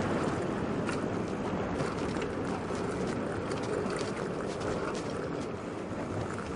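Bike-share city bicycle rolling along an asphalt street: a steady hiss of tyres and moving air with scattered light clicks and rattles from the bike.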